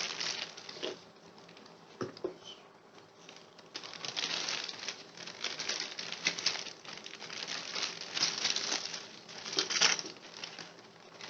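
A gaming headset's packaging cover rustling and crinkling in irregular spurts as the headset is slowly slid out of it by hand, with small clicks and taps, busiest about halfway through and with a last burst near the end.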